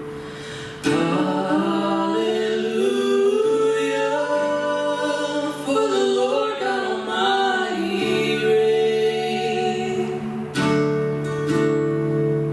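Song with singing over acoustic guitar, guitar strums coming in about a second in and again near the end.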